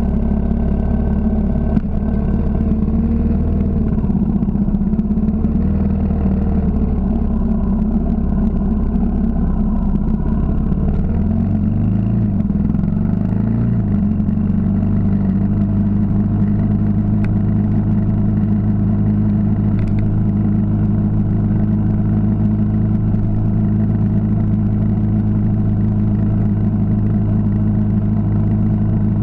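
Yamaha XT 600's single-cylinder four-stroke engine running under the rider. Its pitch rises and falls for roughly the first fourteen seconds, then holds a steady note while cruising.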